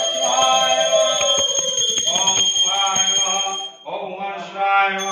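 Devotional chanting sung to a melody over music. The singing breaks off briefly about four seconds in, then carries on.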